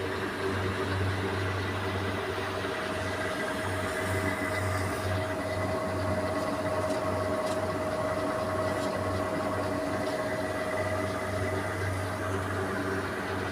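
An ASHINA tapping drill machine running steadily, its motor giving a constant hum with a steady whine above it.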